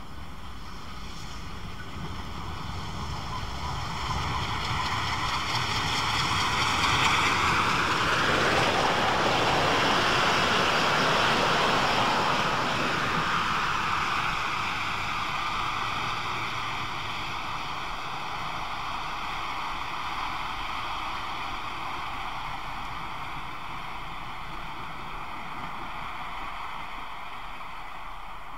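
DB Class 50 2-10-0 steam locomotive sounding a long warning whistle for a level crossing, echoing off the woods, its pitch dipping as the engine draws near. The train then coasts past with a swelling rush of wheels on rails, loudest near the middle, and fades slowly away while a fainter whistle tone lingers.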